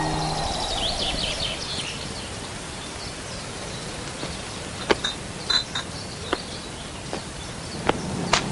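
Open-air country ambience: birds chirping and insects buzzing over a steady hiss, with a few sharp clicks and chirps in the second half. A held music chord dies away right at the start.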